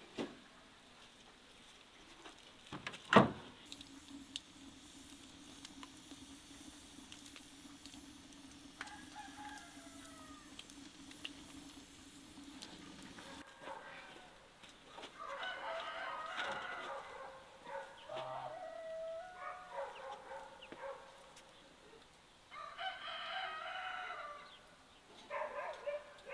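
Chickens clucking and a rooster crowing, loudest in the second half. A single sharp knock about three seconds in is the loudest sound.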